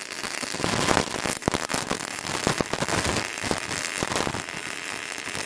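Sanqiao MAG-285GMA MIG welder running gasless wire at about 40 A and 13.5 V, its arc crackling steadily and throwing spatter as a weld bead is laid.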